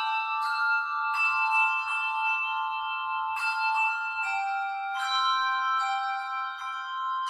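Handbell choir playing a slow hymn: chords of several bells struck together and left to ring, a new chord about every one to two seconds.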